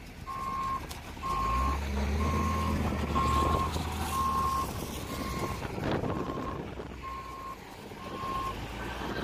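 Reversing alarm on heavy earthmoving equipment, a steady single-pitched beep repeating about once a second, stopping near the end. Underneath it, a heavy diesel engine runs and swells for a few seconds from about a second in.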